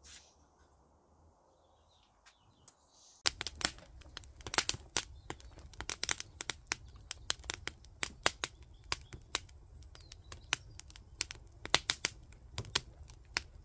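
Wood fire crackling in a washing-machine-drum fire pit: many irregular sharp pops and snaps over a low steady rumble, starting suddenly about three seconds in after near quiet.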